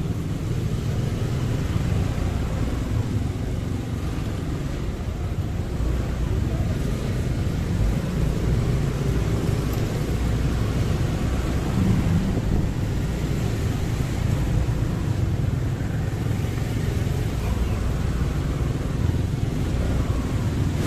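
Steady engine and road noise from a motorcycle ride through city traffic: the bike's engine running, with the rumble of surrounding cars and motorbikes.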